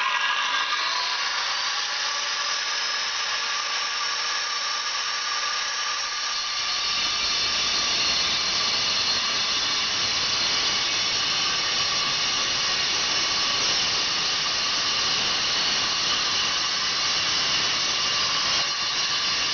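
Angle grinder's disc spinning up to a steady high whine, then cutting into a brick from about six seconds in, the cut adding a harsh grinding rasp under the whine.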